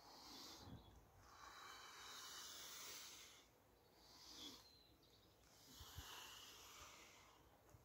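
Near silence, with a faint hiss that swells and fades every second or two.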